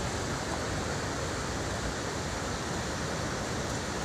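Steady rushing noise of a mudflow of mud and debris pouring down, even and unbroken.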